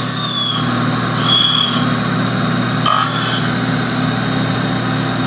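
Connecting-rod cap grinder running with a steady motor hum, with a few brief high squeals as the rod cap is swung across its cup stone on a final cleanup grinding pass.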